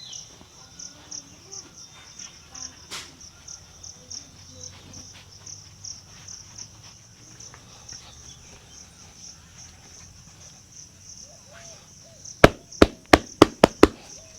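Crickets chirping in a steady, evenly pulsing high trill. Near the end comes a quick run of about seven sharp slaps, the barber's hands striking during the head massage.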